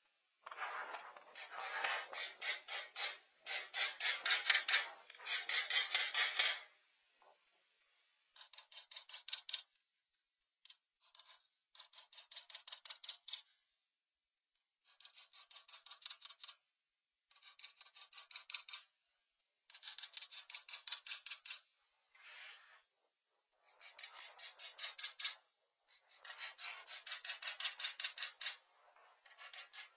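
A pencil scribbling and shading on paper in rapid back-and-forth strokes, several a second, in runs of one to two seconds with short pauses between.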